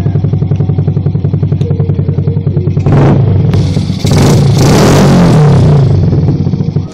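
Yamaha Crypton R motorcycle's single-cylinder four-stroke engine idling with an even, pulsing beat, blipped briefly about three seconds in, then revved for about two seconds before dropping back to idle.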